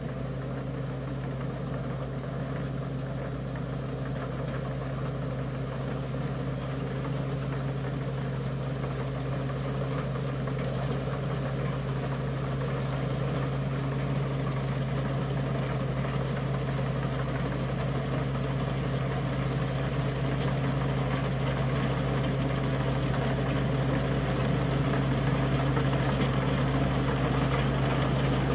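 Engine of a rice-harvesting tractor running steadily with a low hum, growing gradually louder.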